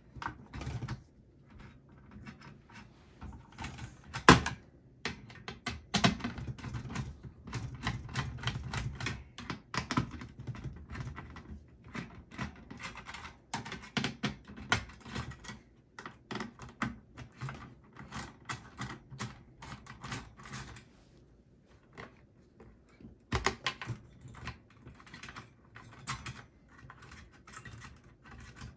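Phillips screwdriver loosening the screws that hold a desktop CPU cooler's heatsink to the motherboard: runs of rapid small clicks and ticks with short pauses, and one sharp louder click about four seconds in.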